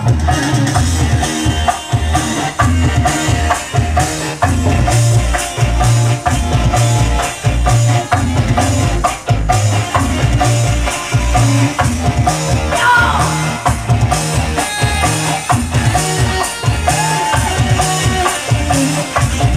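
Music with drums keeping a steady beat.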